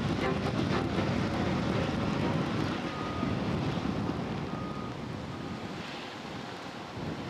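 Wind buffeting the microphone over a low rumble. A faint, thin, steady high tone comes in briefly twice around the middle.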